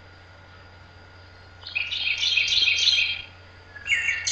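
Songbird chirping: a rapid run of high chirps lasting a second and a half, then a shorter call near the end.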